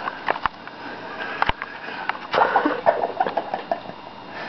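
A person sniffing and breathing in a small room, with a few sharp clicks and a burst of breathy noise about halfway through.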